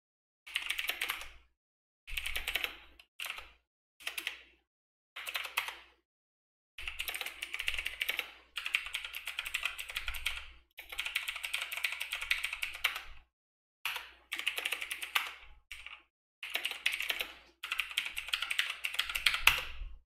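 Typing on a computer keyboard: about ten bursts of rapid keystrokes with short pauses between them, the bursts running longer in the second half.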